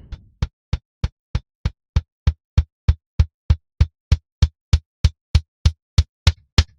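Soloed live-recorded kick drum track playing back, about three even hits a second. Each is a short low thump with a sharp click on top, and there is clean silence between hits: the kick has been gated and evened out with a drum leveler.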